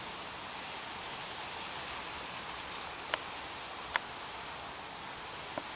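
Steady outdoor background hiss with a faint high steady tone, broken by three short sharp clicks in the second half.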